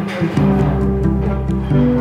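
Background music: held notes changing every half second or so over a low bass line.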